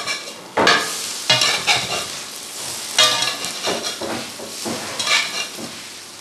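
Spatula and tongs scraping and knocking against a nonstick frying pan as small whitebait patties are turned over, a handful of irregular strokes over a light frying sizzle.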